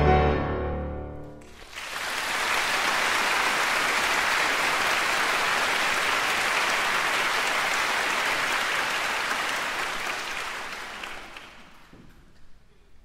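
The last chord on piano and cellos dies away, then a concert audience breaks into applause about a second and a half in, steady for about ten seconds before fading out near the end.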